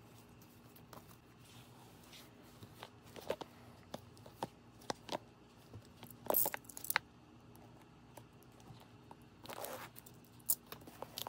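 Plastic shrink wrap on a boxed DVD set being handled and slit open with a box cutter: scattered light taps and clicks, with two short bursts of crinkling, tearing plastic about six seconds in and near the end.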